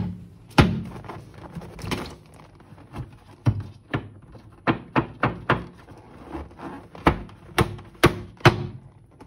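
A series of about a dozen short, dull knocks at uneven intervals.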